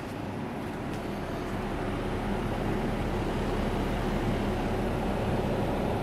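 Outdoor unit of an LG dual inverter air conditioner running: a steady whoosh from its DC-motor condenser fan with a low hum, and no compressor noise.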